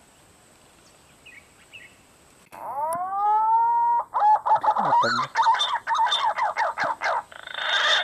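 Loud animal calls. About two and a half seconds in, a drawn-out note rises and then holds; it is followed by a rapid run of chattering notes that keep changing in pitch.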